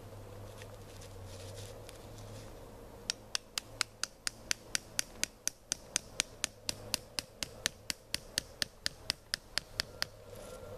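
A rapid, even run of sharp clicks, about four a second, starting about three seconds in and lasting some seven seconds, after soft rustling.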